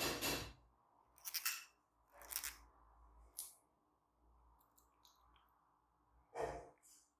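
Fischer's lovebirds giving short, harsh, scratchy chirps, about six separate calls with small clicks between them.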